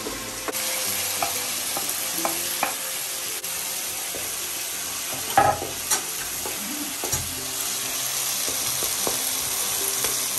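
Onions and tomatoes frying in mustard oil in a metal kadai, sizzling steadily, while a wooden spatula stirs and scrapes against the pan, with a few louder knocks about five to six seconds in.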